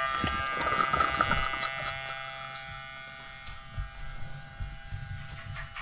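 Sea-Doo OEM electric bilge pump running in a nearly empty bucket of water. Its small motor gives a steady buzzing whine that fades over the first few seconds, and from about half a second in it sputters as it draws in the last of the water and air. Irregular low knocks follow in the second half.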